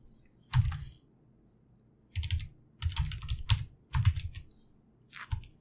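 Typing on a computer keyboard: short bursts of keystrokes with brief pauses between them, as a web address is typed in.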